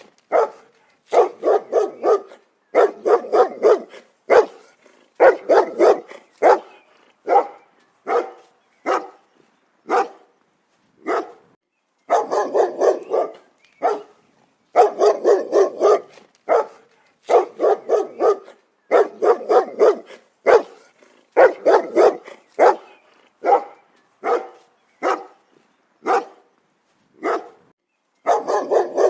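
A single dog barking over and over, in quick volleys of four or five barks broken by short pauses, with single barks between the volleys.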